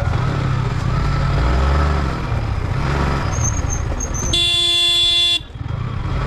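Yamaha motorcycle engine running at low speed with a steady low rumble. About four seconds in, a horn sounds once, held for about a second.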